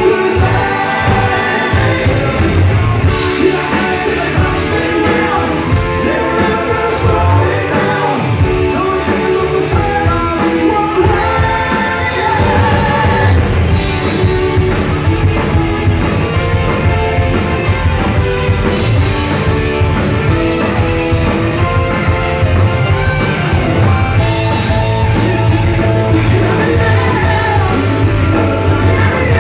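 Live rock band playing a song with a lead singer, electric guitars, bass, keyboards and drums, all loud and continuous.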